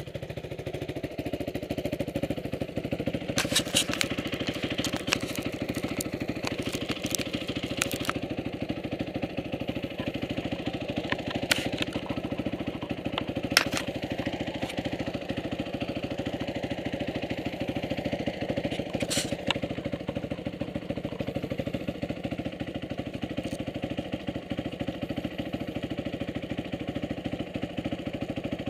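Motorcycle engine running steadily at an even speed, with no revving. A few sharp clicks come through over it about four to eight seconds in, and once or twice more later.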